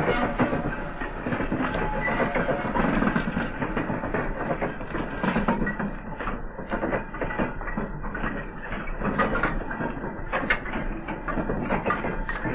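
Model railway goods train running: the small wheels of the vans click and rattle over rail joints and pointwork, mixed with the Dapol B4 tank engine model's digital steam sound.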